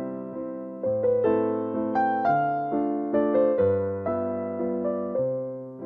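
Background music: a keyboard melody in an electric piano sound, notes struck and fading in an even rhythm.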